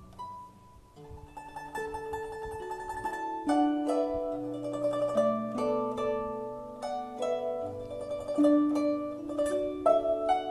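Guzheng (Chinese zither) played solo: a melody of plucked, ringing string notes. It starts quietly with a few notes and grows fuller and louder from a few seconds in.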